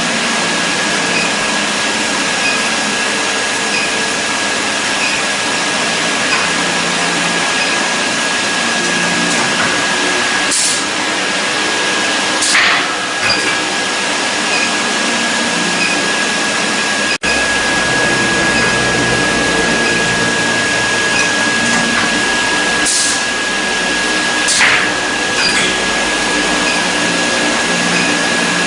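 Steady machine noise with a constant high-pitched whine, broken by four short hisses.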